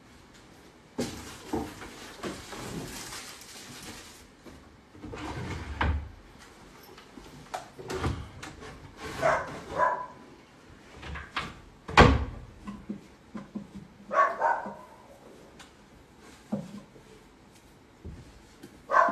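Wooden dresser drawers being pulled open, rummaged through and knocked, with a loud thump about twelve seconds in. A dog barks a few times in short groups.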